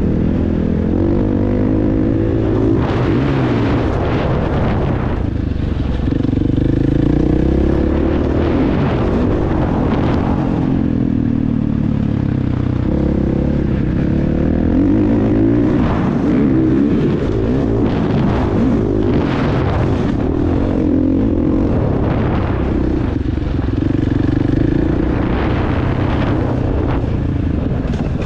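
Motocross bike engine revving up and falling back again and again as it is ridden around a track, with repeated bursts of rushing noise.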